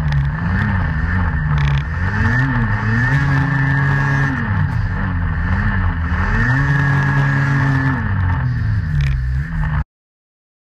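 Snowmobile engine revving as the sled rides through deep powder, its pitch rising and falling over and over; the sound cuts off suddenly about a second before the end.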